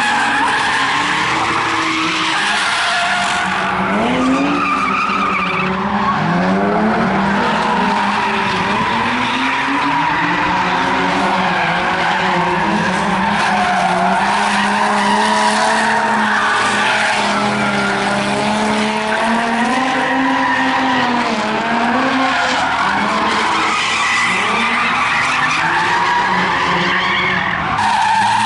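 Drift cars' engines revving hard, the pitch rising and falling again and again, with tyres squealing as the cars slide sideways.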